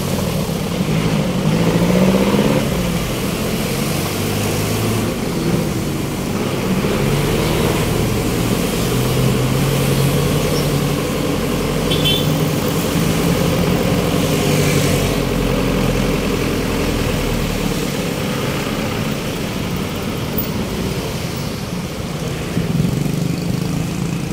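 Road traffic: motor vehicle engines running and passing with a steady hum, and a deep rumble that drops away about eighteen seconds in.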